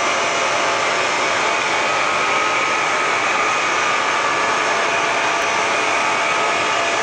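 Blown-film plastic extrusion machine running: a steady whirring hum of motors and air blower, with a few constant whining tones over it.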